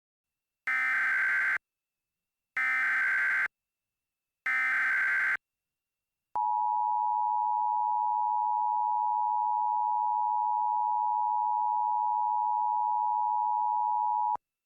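Emergency Alert System SAME header: three short bursts of warbling data tones about a second apart, then the two-tone EAS attention signal held steady for about eight seconds and cut off sharply. It marks the start of a new emergency alert.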